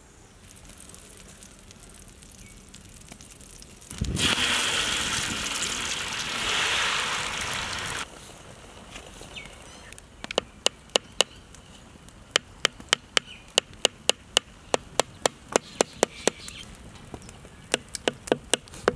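Beaten egg mixture with chopped vegetables poured onto a hot, buttered griddle: a loud gushing sizzle starts suddenly about four seconds in and cuts off about four seconds later. Then a metal spatula spreads the mixture, clicking sharply against the pan about three times a second.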